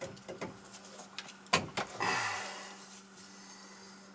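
Copper pipe and fittings being handled while a slip coupling is worked onto the pipe: a few light clicks, a sharp metal knock about one and a half seconds in, then a rubbing scrape that fades over about a second. A faint steady hum sits underneath.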